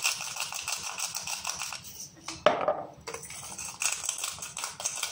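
Hand-twisted salt and pepper grinders crunching in rapid rasping clicks, first the salt mill and then the peppercorn mill. Between the two there is a short break with one sharp knock.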